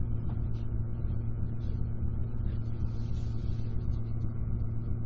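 Room tone: a steady low hum with faint specks of higher noise over it, with no speech.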